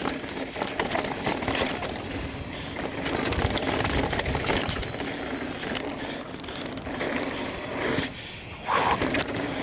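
Mountain bike ridden fast down a rocky trail: steady tyre and wind noise with the knocks and rattles of the bike over bumps, and a louder burst near the end.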